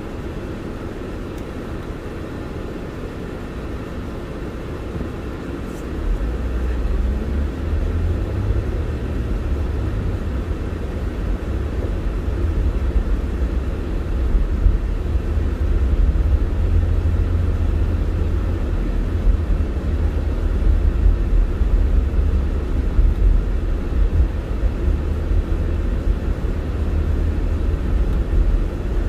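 Inside a moving car: a steady low rumble of road and engine noise, which gets louder about six seconds in.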